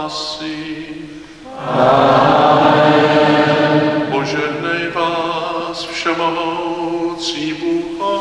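Liturgical chant in call and response: a solo male voice chants a line, then about a second and a half in, many voices come in louder with the sung response, and solo chanting resumes about halfway through.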